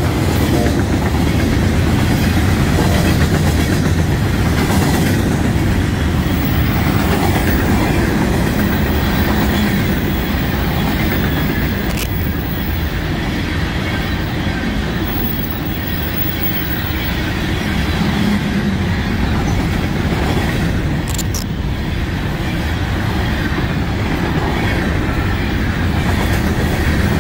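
Freight cars of a passing train rolling by close: a loud, steady rumble and clatter of steel wheels on the rails, with a couple of sharp clicks partway through.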